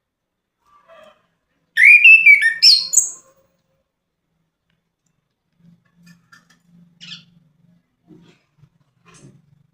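Orange-headed thrush singing one loud, quick phrase of varied whistled notes about two seconds in, followed by a few faint, soft notes.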